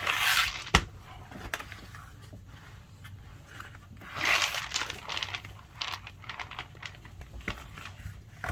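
Packaging being handled: two bursts of crinkling, at the start and about four seconds in, with a sharp click just after the first and scattered small taps and clicks between.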